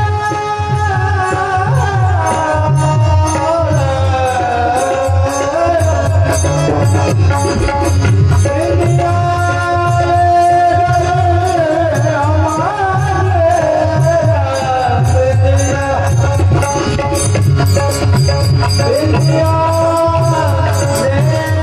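Devotional kirtan singing in a high voice, the melody held and ornamented with slides, over a hand drum and small hand cymbals keeping a steady rhythm.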